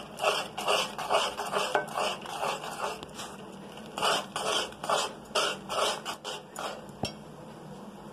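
Steel spatula scraping against the sides and bottom of an aluminium pot while stirring Maggi noodles in water, a quick run of about three scrapes a second that slackens briefly in the middle and picks up again, ending with a sharp knock near the end.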